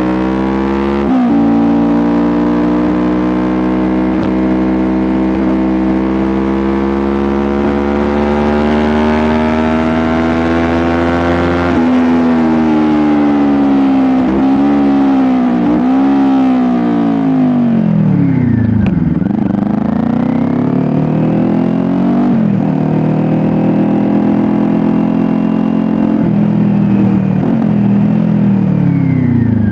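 Kawasaki Ninja motorcycle engine and exhaust running, its pitch climbing slowly for about twelve seconds, then repeatedly dropping and rising again as the revs fall and build.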